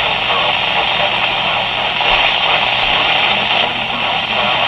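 Weather-radio static: a steady, loud hiss from the receiver with no clear voice coming through, under a faint low hum.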